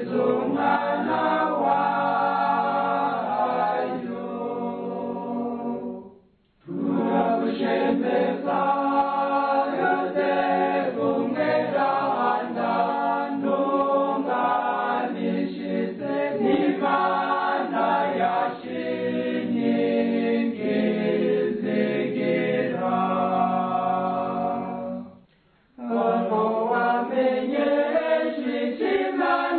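Choir singing a Kirundi Catholic hymn to Saint Joseph, largely unaccompanied voices. The singing cuts out briefly twice, about six seconds in and again near the end, then resumes.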